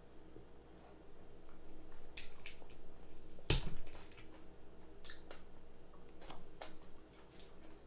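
Crab legs being cracked open and eaten: scattered shell cracks and clicks with wet chewing and smacking, the loudest a single sharp crack about three and a half seconds in.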